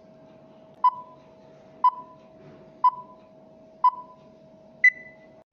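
Countdown timer sound effect: four short beeps one second apart over a steady lower hum, then a fifth, higher-pitched beep to end the count.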